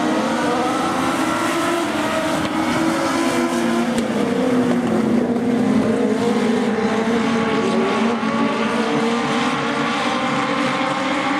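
A pack of Legends race cars, with Yamaha four-cylinder motorcycle engines, racing on a dirt oval: several engines at high revs overlapping, their pitches rising and falling as the cars accelerate and lift around the track.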